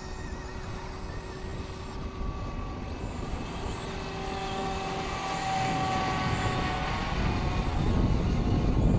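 SAB Goblin 500 electric RC helicopter flying overhead: a whine of its motor and rotors with pitch that shifts slowly as it manoeuvres, growing louder in the last few seconds.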